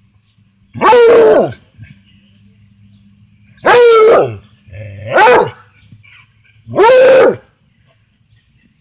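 Redbone Coonhound barking four times, each bark a loud call about half a second long that falls in pitch.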